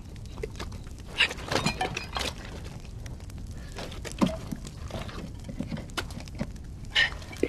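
A man's strained gasps and groans in short irregular bursts, strongest about a second in and near the end, over a steady low rumble with scattered crackles.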